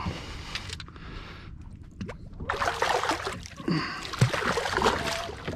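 Water splashing as a hooked shark thrashes at the surface beside the boat, starting about two and a half seconds in and lasting a couple of seconds.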